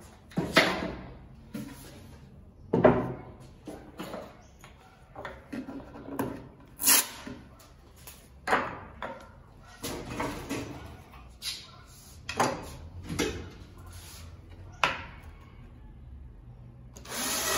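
Irregular knocks and clicks of a steel telescopic drawer slide being handled and positioned against an MDF drawer side. Near the end a cordless drill/driver runs for about a second, driving a screw into the slide.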